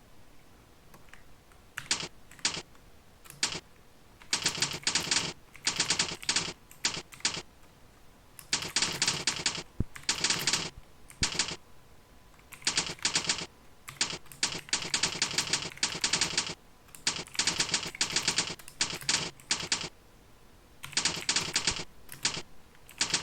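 Fast typing on a computer keyboard: rapid key clicks in bursts of a second or two, broken by short pauses.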